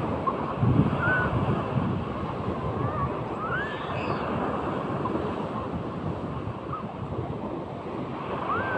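Sea surf washing and breaking, with wind buffeting the microphone; a surge is loudest about a second in. A few short, faint high-pitched calls rise and fall over the surf.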